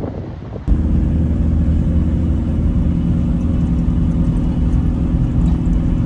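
Brief wind buffeting the microphone, then an abrupt switch about a second in to the loud, steady drone of a van's engine and road noise heard from inside the cab while driving.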